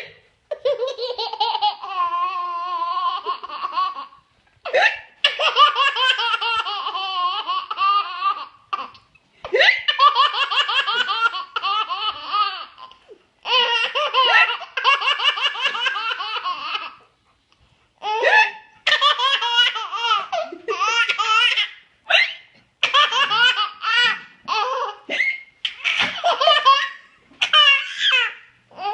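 A baby belly-laughing in long, high-pitched bouts of a few seconds each, with short pauses between them. Brief sharp sounds fall in some of the pauses: the mother's hiccups that set the baby off.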